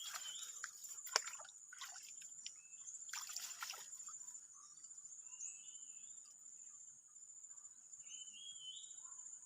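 Steady high-pitched drone of insects in tropical forest, with a few bursts of water splashing in the first four seconds and, later, short rising chirps from a small animal.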